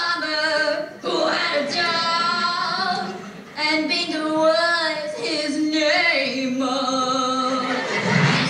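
A woman singing a pop tune in long held notes that bend in pitch, with brief breaks about a second in and about three and a half seconds in, heard from a TV speaker.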